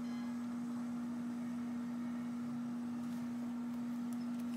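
Scotch thermal laminator running, a steady electric hum at one constant pitch from its roller motor as a laminating pouch feeds through.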